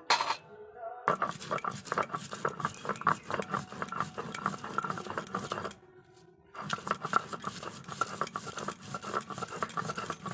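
Stone roller (nora) rubbed back and forth on a wet flat grinding stone (sil) as mustard, coconut and chilli are ground into a paste: stone scraping on stone with a dense gritty clicking, in two stretches with a brief pause about six seconds in.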